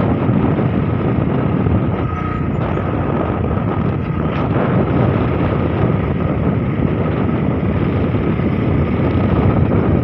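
A moving motorcycle, its engine and road noise mixed with steady wind rushing over the microphone.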